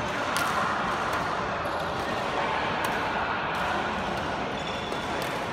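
Badminton play in a sports hall: a couple of sharp hits, racket on shuttlecock or shoes on the court, over a steady hall background noise, with faint voices.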